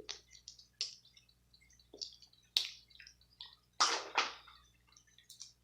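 Close-up eating sounds from a sauce-covered seafood boil: scattered wet clicks and crackles of crab shell being picked apart and the meat chewed, with a louder crackling burst about two-thirds through.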